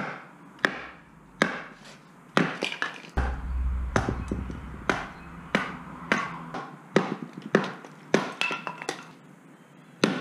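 Hatchet splitting kindling on a wooden chopping block: more than a dozen sharp strikes in a steady series, about one every half-second to second.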